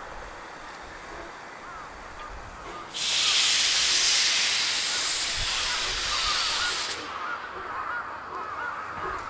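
C58-class steam locomotive C58 363 blowing off steam as it moves slowly: a loud hiss that starts suddenly about three seconds in and cuts off about four seconds later.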